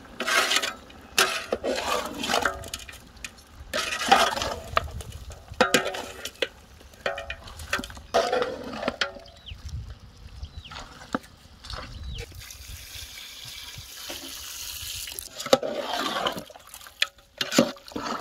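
A metal spatula stirring and scraping mutton with chilli powder on a hot tawa, in irregular strokes. For a few seconds in a pause the frying hiss shows through.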